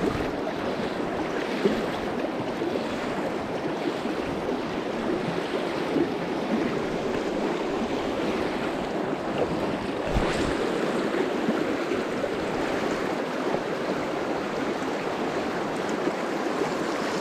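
River water rushing steadily past. A brief faint knock comes about ten seconds in.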